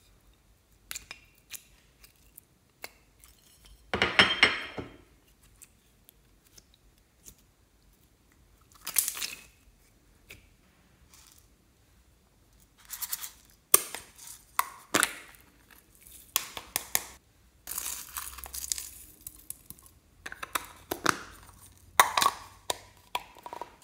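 Plastic slime containers being handled and opened by hand: scattered light clicks and several short bursts of peeling, crinkling plastic, the loudest about four seconds in.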